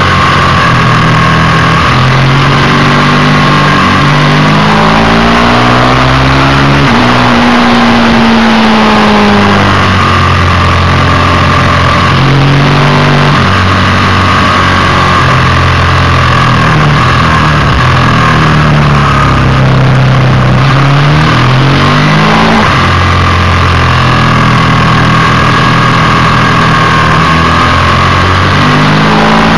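Ducati 620 Desmodue air-cooled L-twin engine at racing speed, heard from on the bike. It revs up through each gear, drops at the shifts and falls away when the bike slows for corners, again and again, under a steady rush of wind noise.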